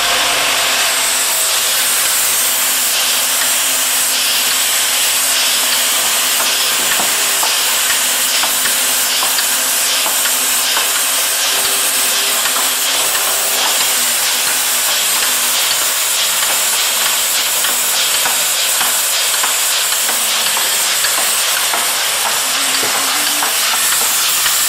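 YX-CS100 high-speed rotary push-pull cap assembly machine running: a loud, steady hiss with faint, rapid ticking of plastic caps in the turret and feeders, over a low steady hum.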